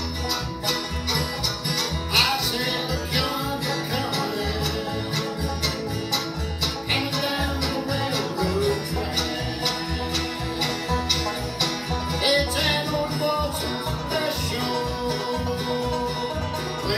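Live bluegrass band playing an instrumental passage: banjo picking, fiddle melody, mandolin and acoustic guitar, over an upright bass keeping a steady beat.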